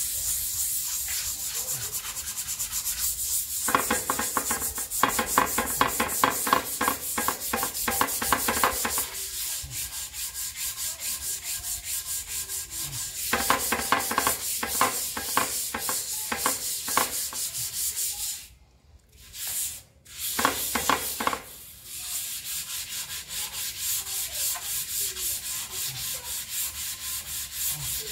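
Sandpaper rubbed by hand back and forth over a wet, soapy steel skid plate in steady rhythmic strokes, with a brief pause about two-thirds of the way through.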